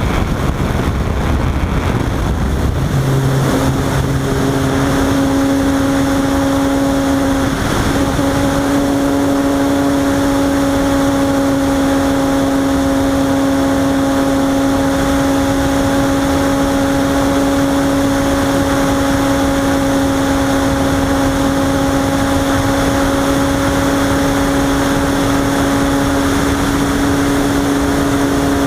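Robbe Arcus Sport RC motor glider's electric motor and propeller running, heard from the onboard camera over a steady rush of air. The motor note settles to a steady pitch within the first few seconds and holds.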